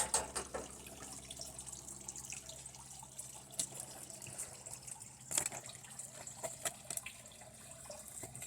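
Scattered light clicks and taps from handling a flat-panel TV's plastic back cover and its screws during disassembly, with a cluster of sharper clicks about five seconds in.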